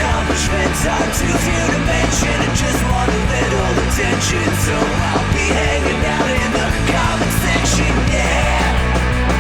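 Punk rock band playing a loud instrumental passage, with electric guitars, bass and drums and repeated cymbal crashes.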